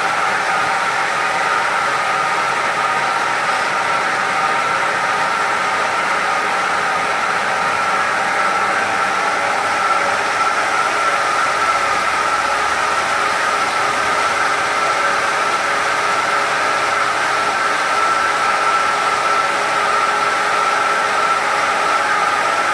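Industrial automatic carpet washing machine running: a steady, unchanging whine over a loud hiss.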